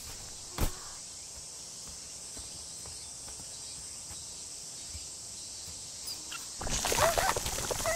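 A garden tap is turned on near the end and water starts rushing through the hose into a vinyl paddling pool, loud and splashy. Before that there is a steady faint high hiss, with a single click about half a second in.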